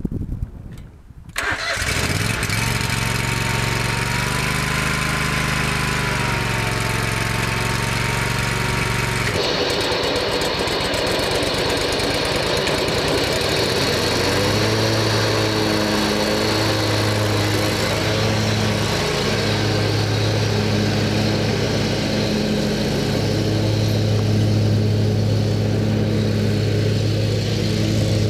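The 20 hp Kohler Command engine of a 2005 Exmark Turf Tracer zero-turn mower starts cold about a second and a half in and runs. About nine seconds in the sound changes abruptly. Near fourteen seconds the engine speeds up and settles into a steady, pulsing run.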